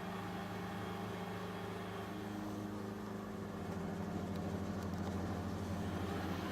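CNC milling machine cutting aluminium, its spindle and end mill running with a steady hum that grows a little louder about four seconds in.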